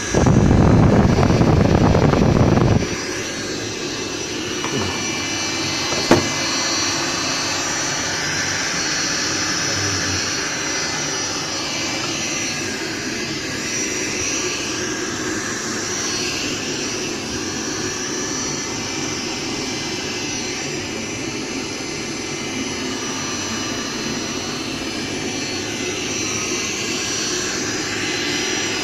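Industrial heat gun (hot-air blower) running with a steady blowing whine. About three seconds in its sound drops sharply to a lower, steady level, and a single sharp click comes a few seconds later.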